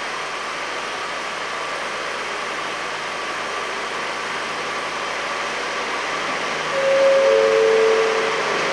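Leyland Pacer railbus running steadily as it approaches, with a two-note horn, a higher note then a lower one, sounding about seven seconds in.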